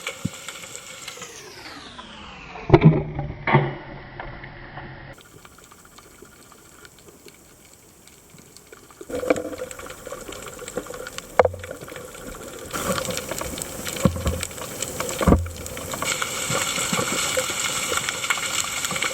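Boat engine and water sounds: an engine falling in pitch over the first few seconds, a few knocks, then a quieter stretch. From about two-thirds of the way in, an engine runs steadily with wind noise over it.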